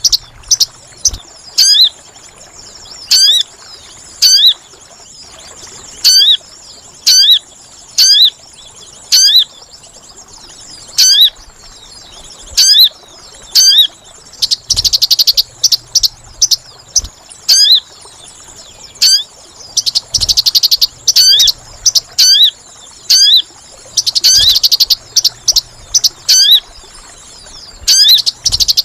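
Lure recording of small-bird calls used to attract sogon: sharp, high hooked chirps repeated about once a second, joined from about halfway on by bursts of rapid, dense chattering lasting a second or so each.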